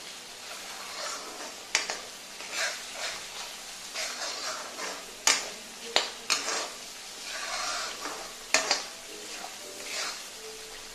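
A metal spoon stirring and scraping thick masala paste in a metal kadhai, over the sizzle of the masala frying in oil. The spoon knocks sharply against the pan four times.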